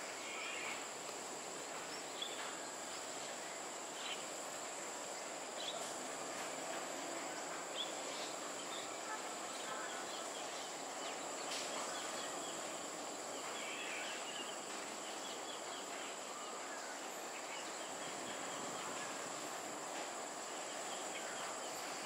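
Outdoor ambience: a steady high-pitched insect drone over a constant background noise, with a few short high chirps scattered through it.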